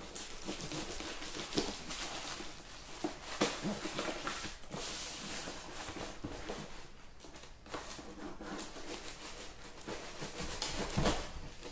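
Black plastic packaging rustling and crinkling as hands unwrap a cardboard box from it, with small clicks and knocks of handling.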